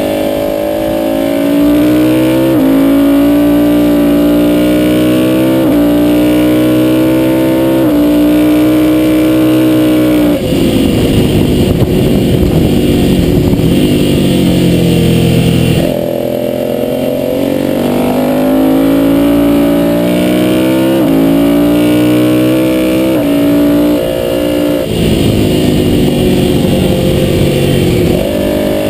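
Ducati V-twin sportbike engine at full throttle on track, pulling up through the gears with an upshift every two to three seconds. About a third of the way in it goes off the throttle into a rough, falling stretch of downshifts and braking for a corner, then accelerates through the gears again.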